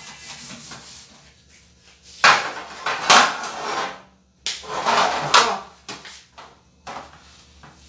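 Metal baking trays being handled on a kitchen counter: two bursts of rattling and scraping, each a second or so long, and a sharp knock near the end.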